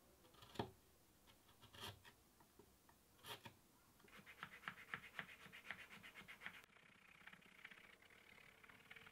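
Faint scraping of a small hand chisel cleaning out a groove in a small wooden block. A few soft isolated taps come first, then a run of quick scraping strokes, about four a second, starts about four seconds in and fades out after a couple of seconds.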